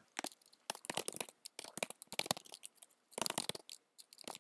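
Typing on a computer keyboard: irregular runs of quick, light key clicks with short pauses between them.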